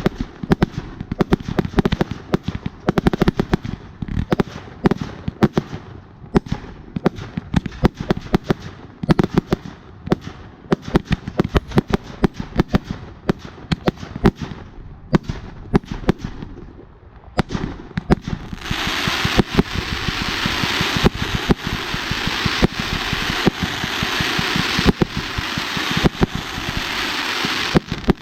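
Firework volcano fountains: dense, rapid crackling pops that thin out about 17 seconds in, then a loud, steady hissing spray with scattered pops that cuts off near the end.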